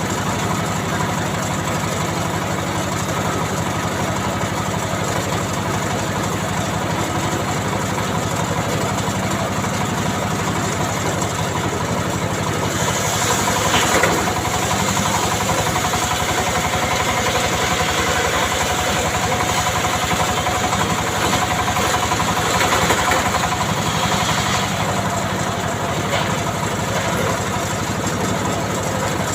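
An engine running steadily at an even speed. About 13 seconds in a brighter, hissing sound joins it and carries on, with a couple of short sharp sounds.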